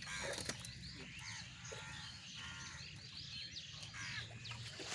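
Several birds chirping and calling, with many short, overlapping calls throughout, over a low steady background hum.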